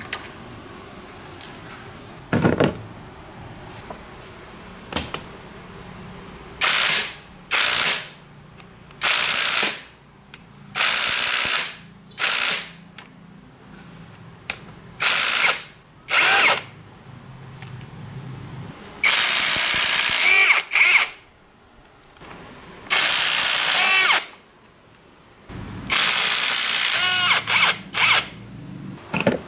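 A handheld power tool runs in repeated short bursts, each a second or so long, with pauses between them. This is typical of work on metal parts during an engine restoration.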